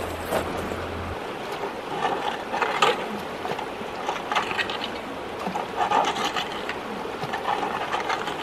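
Shallow, swift river riffle running steadily over rocks, with irregular splashes and knocks as people wade and stir the streambed while working a seine net.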